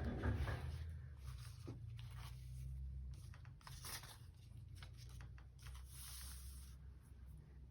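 Paper rustling and scraping in short, uneven swishes as sheets are handled, with a few light clicks over a steady low hum.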